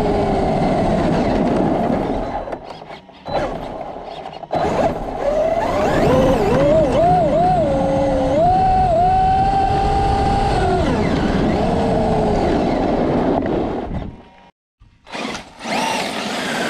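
Traxxas Unlimited Desert Racer RC truck's brushless electric motor whining, its pitch rising and falling with the throttle over a steady rush of noise. The sound drops away briefly about three seconds in and again near the end.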